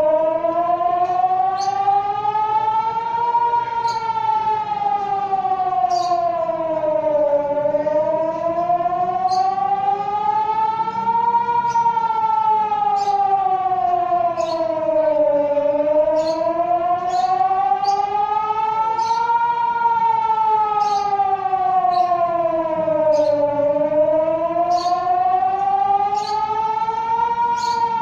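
Civil-defence emergency warning siren sounding a slow wail in a test of the city's public warning system. It switches on right at the start, and its pitch rises and falls steadily, each full rise and fall taking about eight seconds.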